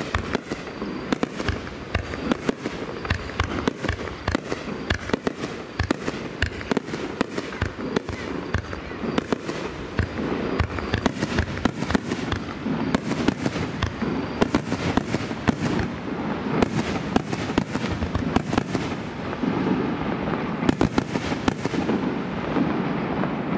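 A festival display of aerial firework shells by Nomura Fireworks going off in a dense, rapid barrage, with many sharp bangs and crackles in quick succession. The barrage eases just at the end.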